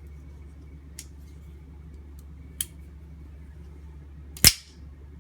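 Spring-loaded automatic knives, an Al Mar S.E.R.T. and a Boker Kalashnikov, firing their blades open with sharp snapping clicks. There are three clicks, the loudest about four and a half seconds in.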